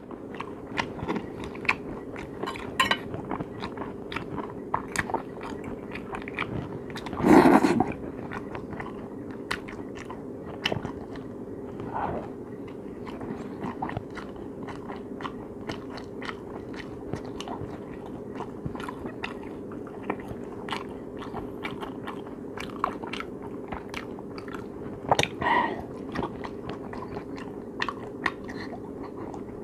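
Close-miked chewing and biting of crisp garlic toast, with many small crunches and wet mouth clicks.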